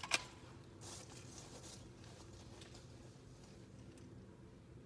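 Faint outdoor background noise, with one short click right at the start and a few faint rustles, while the shooter takes aim.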